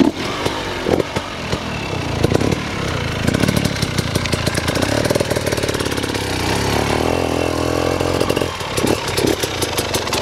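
KTM enduro motorcycle engine running at low revs as the bike is ridden slowly over dirt, with a few short louder surges in the first few seconds, then steadier.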